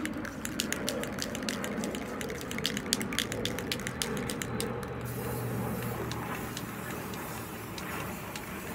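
Rust-Oleum American Accents metallic gold spray paint can being shaken, its mixing ball rattling several times a second, for about five seconds; the rattling then mostly stops and a steady hiss takes over.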